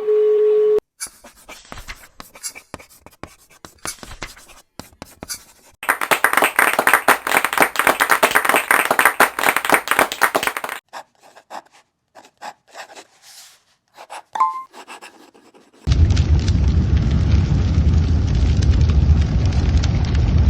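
A sequence of sound effects. A steady phone-line tone cuts off under a second in, followed by scattered clicks and scratching and a few seconds of rapid, dense tapping. Near the end comes a loud, steady, low rumbling noise.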